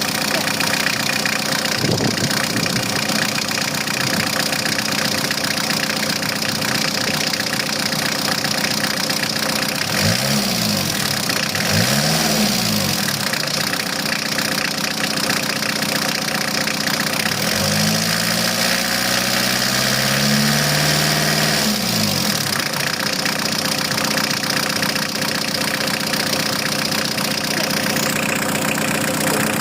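Van engine idling, revved briefly twice about ten seconds in, then held at higher revs for about four seconds before dropping back to idle.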